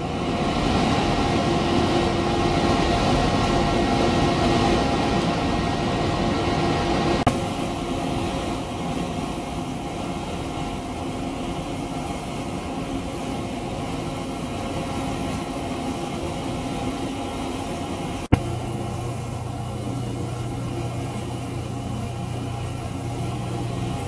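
Steady hum and hiss of ultrasonic probes and their equipment running in a water-filled tank, with several constant tones and a high whine over it. The sound shifts abruptly about seven seconds in, and a short click comes about eighteen seconds in, where the steady hum changes again.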